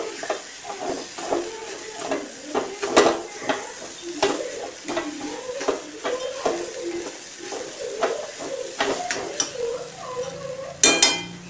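Steel spoon stirring and scraping a thick banana, grated coconut and peanut mixture in ghee in a steel pan over a gas flame, with repeated clicks of the spoon against the metal and a frying sizzle underneath. Near the end comes one louder, ringing metal clink.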